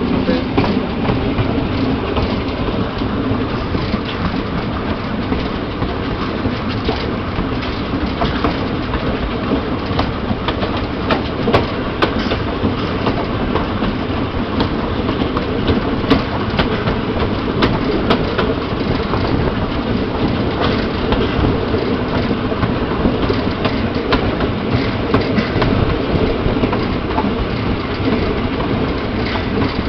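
Moving steam-hauled goods train heard from beside a wagon: a steady rumble and clatter of wagon wheels running on the rails, with occasional sharp clicks.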